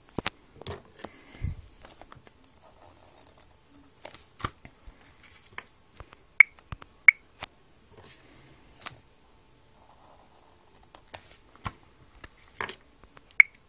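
A pen writing on paper in short scratchy strokes, with scattered sharp clicks and taps from handling the paper and the pen.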